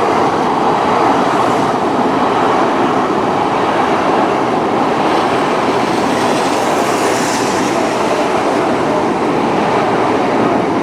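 Tokaido Shinkansen bullet train pulling into the platform: a loud, steady rush of wheels and air, with a brief higher hiss about seven seconds in.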